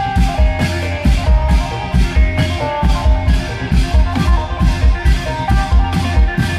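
Isan klong yao long-drum band music: a steady, driving beat of low drum strokes under an amplified melody line.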